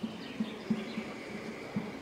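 Quiet outdoor ambience with faint bird chirps and a faint, irregular run of soft low ticks, a few a second.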